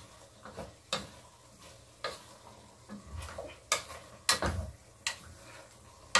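Wooden spatula stirring vegetables and tofu in a cooking pot, with short scrapes and knocks against the pot roughly once a second, a cluster of them near two-thirds of the way through.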